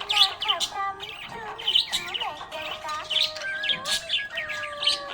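Budgerigars chirping and chattering, a rapid, continuous stream of short high chirps.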